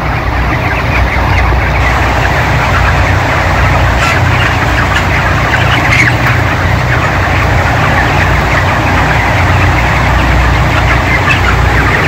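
Steady low drone of the shed's nine ventilation fans running, under the dense, continuous chatter of a large flock of broiler chickens.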